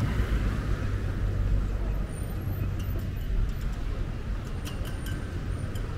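Street traffic: cars passing on the road, a steady low rumble of engines and tyres, with a few faint ticks near the end.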